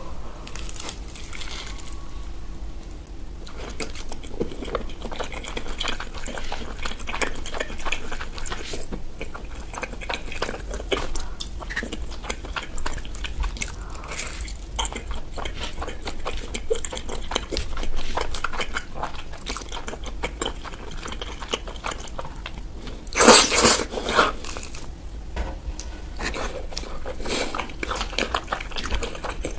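Close-miked biting and chewing of thick-crust cheese pizza: the crust crunches and crackles in quick, irregular clicks, with one much louder crunch about two-thirds of the way through.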